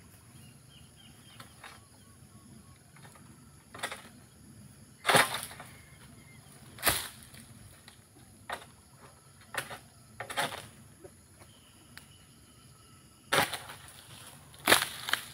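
Pole sickle chopping into oil palm frond bases during pruning: about eight sharp cutting strokes at irregular intervals, two of them coming close together near the end.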